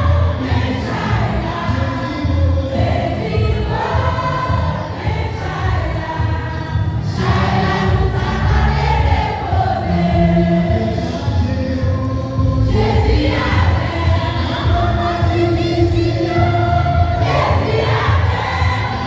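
Church choir singing a hymn at mass, with instrumental accompaniment and a steady low bass.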